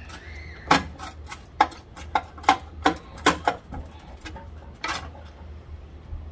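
A quick, irregular run of about a dozen sharp metallic clanks and clicks from a hand tool working against metal in a race car's engine bay as the engine, hanging from a hoist chain, is worked loose for removal. The clanks stop about five seconds in, leaving a steady low hum.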